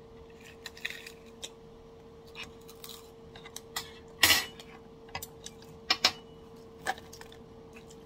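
Metal chopsticks clicking together and tapping against the tableware while picking up seasoned seaweed flakes. The light clicks come irregularly, with one louder clack about four seconds in. A steady faint hum runs underneath.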